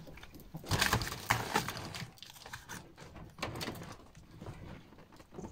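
Prague Ratter dogs moving about in a wire playpen: irregular scuffling, rustling and light clattering of paws and bodies on the bedding and floor, busiest about a second in.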